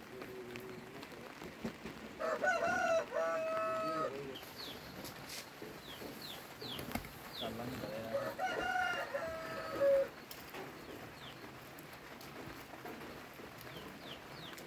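A rooster crowing twice, a few seconds apart, each crow a long call that rises, holds and falls off. Small birds chirp in short, quick falling notes throughout.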